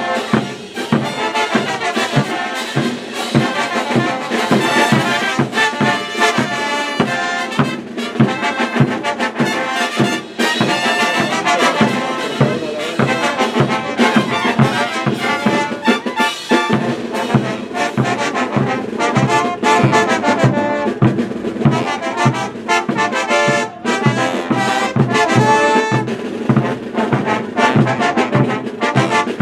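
Brass band playing morenada music, trumpets and trombones carrying the melody over a steady drum beat of about two strokes a second.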